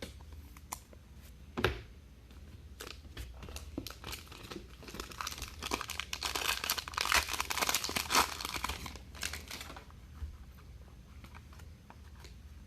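Trading card pack wrapper being torn open and crinkled by hand, with scattered handling clicks, the crinkling heaviest in the middle stretch.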